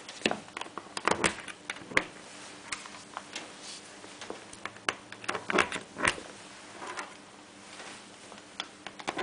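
Irregular clicks and light knocks of test leads and banana plugs being handled and pushed into the panel's sockets, over a faint steady hum.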